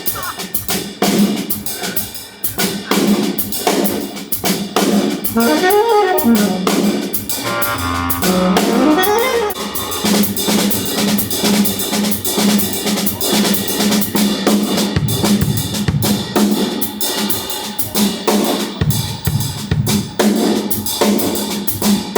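Big band playing: a drum kit keeps time under brass and saxophones, with a horn phrase winding up and down about a third of the way in.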